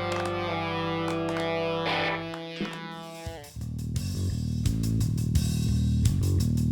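Background guitar music: held electric guitar notes that slide down in pitch, then about halfway through a heavier bass-led part with a regular beat.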